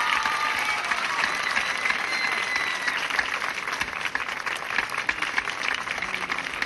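Audience applauding steadily at the end of a dance performance.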